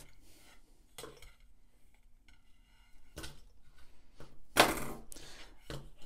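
Hand wire strippers cutting into a black wire's insulation and the insulation being worked off. There are a few small clicks and a short scraping rasp about four and a half seconds in, the loudest sound.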